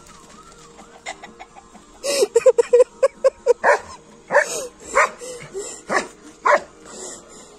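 A Dobermann barking and a rooster clucking and squawking at each other. After a quiet start, a quick run of short calls begins about two seconds in, then several sharper, louder calls follow.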